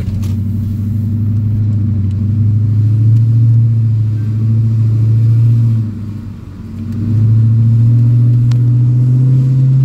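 Lexus IS F's 5.0-litre V8 pulling uphill under load through a muffler-deleted exhaust, a steady low drone that slowly climbs in pitch. The drone drops away for about a second just past the middle, then comes back and keeps rising slightly.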